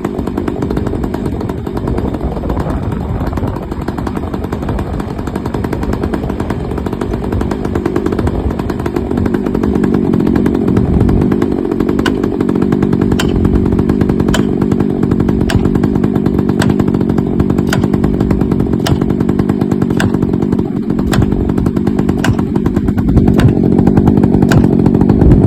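Two-stroke chainsaw idling steadily without revving. From about halfway in, a regular series of light clicks comes a little under twice a second.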